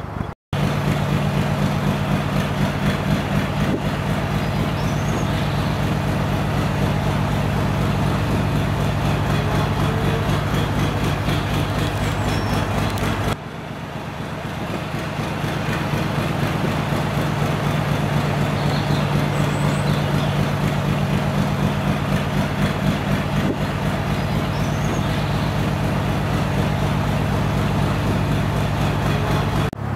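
Narrowboat's diesel engine running steadily at cruising speed, a low even beat. About halfway through the sound drops and then builds back up.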